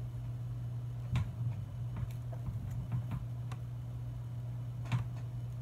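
A handful of light, scattered clicks and taps over a steady low hum.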